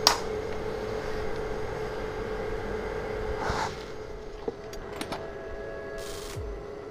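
A steady background hum, with a sharp click at the start and a few light clicks and short rustles through the middle.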